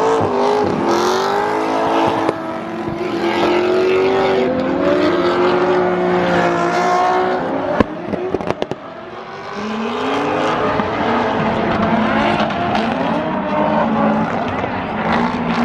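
A drift car's engine revving hard, its pitch rising and falling repeatedly. About eight seconds in there is a sharp crack and a brief drop in the engine sound, and then it climbs again.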